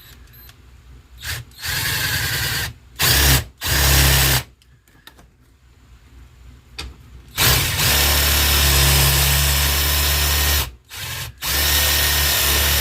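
Cordless drill turning a 3/4-inch spade bit, boring a shallow counterbore in short runs: the drill starts and stops about six times, most runs about a second long and one lasting about three seconds.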